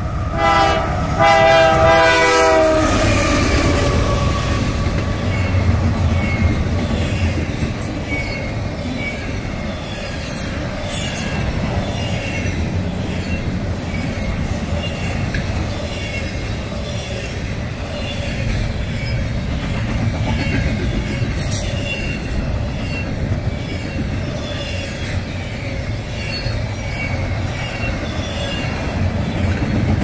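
Canadian Pacific GE AC4400CW locomotive sounding its Nathan K3L three-chime air horn in two blasts as it passes, with the chord dropping in pitch at the end. The locomotive's diesel then rumbles by, followed by the steady rolling noise of a long double-stack intermodal train, with the wheels clicking rhythmically over the rail.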